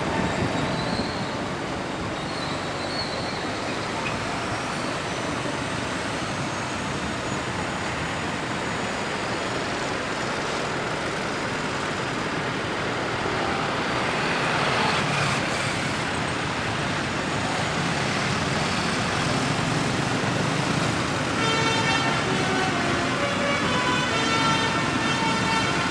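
Steady road traffic noise from a queue of stopped and slow vehicles. About 21 seconds in, a bus's basuri musical air horn starts playing a tune of short notes.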